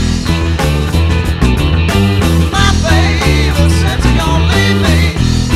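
EB-0 electric bass played on its neck pickup through a compressor, walking a blues-rock bass line along with a recording, over which an electric guitar plays lines with bent notes.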